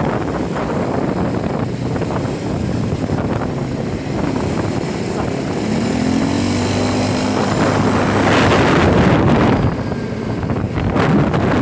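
Quad bike (ATV) engine running under way on a gravel road, mixed with wind and road noise; the engine note rises briefly about six seconds in.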